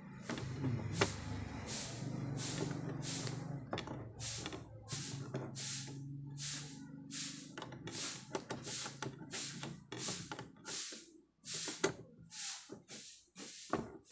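A solar panel's bracket fitting being tightened by hand: a steady run of short rasping clicks, about two a second, with a low handling rumble in the first half.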